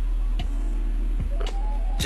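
Background music with a steady low bass and a few soft held notes.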